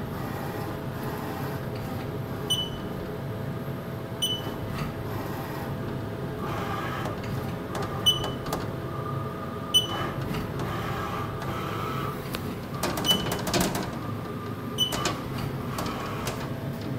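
Haas TM-1 CNC mill running a Renishaw probing cycle: a steady machine hum with the axis motors whining as the probe moves around the aluminium block. Six short high beeps come a few seconds apart, and there is some brief clattering about three-quarters of the way through.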